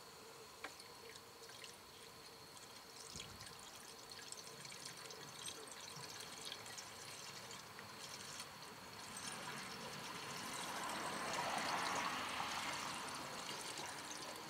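Antifreeze poured from a plastic jug into a car's plastic coolant expansion tank while the cooling system is being filled. It starts as a faint trickle and swells to a steady pour in the second half.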